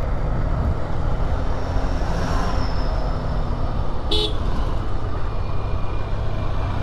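Motorcycle riding at speed, with wind rushing over the microphone and the engine running, and one short horn beep about four seconds in.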